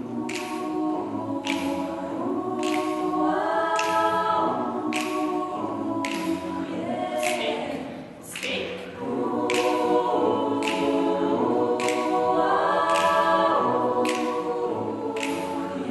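Mixed youth vocal ensemble singing a cappella in held, close-harmony chords, with a short break in the phrase about halfway through. A sharp tick keeps time about once a second.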